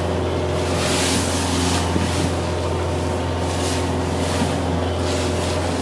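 A small diesel trawler's engine running steadily, a constant low drone, while the boat heads into choppy water. Washes of rushing water and wind noise swell up and fade several times over it.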